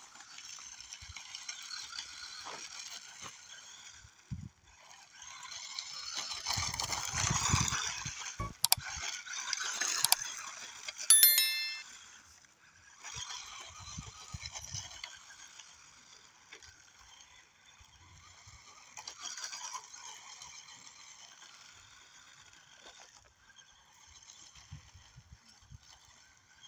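Small electric motor and gearbox of an RC drift car whining, its pitch drifting up and down as the car speeds up and slows. A brief sharp ringing tone about 11 seconds in is the loudest moment.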